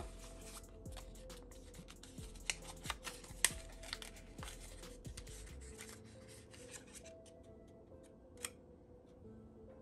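Paper and plastic packing of a smartphone box rustling and crackling as a small paper card envelope is pulled out and opened by hand, with many sharp crinkles and clicks that die down about halfway through. One more click comes near the end.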